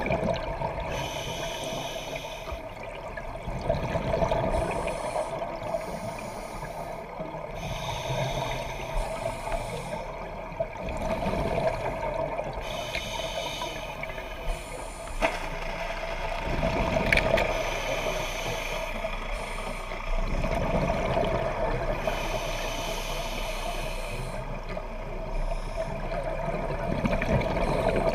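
Scuba diver's regulator heard underwater: bubbly, gurgling exhalations coming every few seconds over a steady hum.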